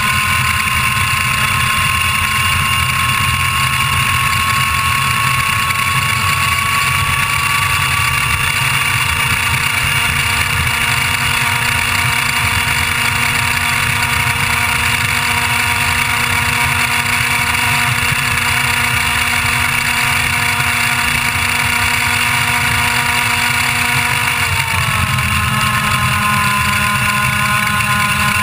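IAME Leopard 125cc two-stroke kart engine at full throttle, heard onboard, its high-pitched note climbing slowly for about ten seconds as the kart gathers speed down the straight and then holding near 14,000 rpm. About twenty-five seconds in, the pitch shifts suddenly as the kart comes off the throttle for the corner.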